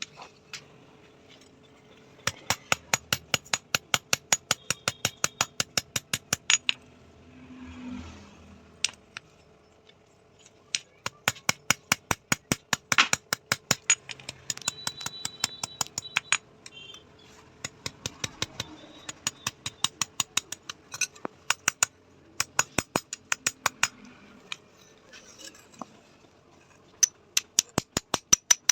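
Hammer blows on steel from a bearing on an anvil: runs of quick, even strikes, about four a second, with short pauses between the runs.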